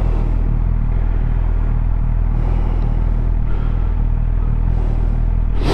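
Suzuki GSX-R750's inline-four engine running at steady revs, with an even rush of wind and road noise on the microphone.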